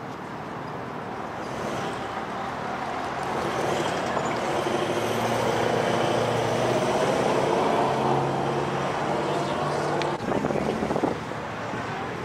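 A rally car's engine running at low revs, the sound swelling over the first several seconds and easing off. A few sharp knocks come about ten seconds in.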